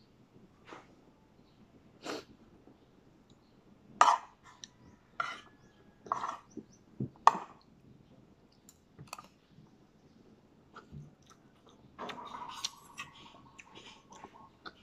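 Eating plain rice with a metal spoon: irregular clinks and scrapes of the spoon against the plate, with chewing between.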